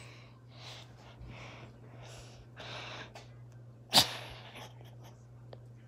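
Dog sniffing and snorting at a piece of banana in short breaths through its nose, with one sudden sharp, loud sound about four seconds in.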